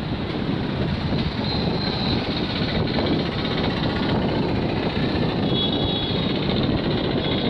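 Twin WDG-3A ALCO diesel locomotives hauling a train at low speed, their engines giving a steady, heavy drone.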